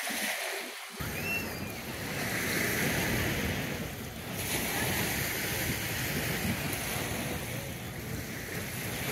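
Wind buffeting the microphone over waves washing on a lakeshore: a steady, rumbling rush that swells and eases, with a brief high chirp about a second in.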